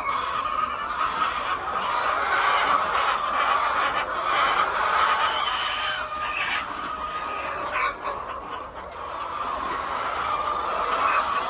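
A flock of layer hens clucking and calling together in a dense, continuous chatter, easing off briefly about eight seconds in.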